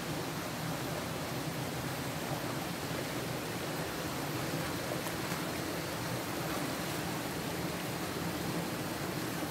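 Steady rushing of churned water in a spring-fed swimming pool, an even hiss with no separate splashes standing out.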